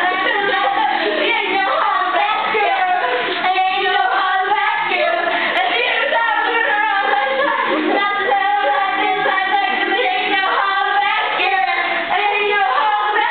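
Girls singing into a corded handheld microphone with music playing behind them.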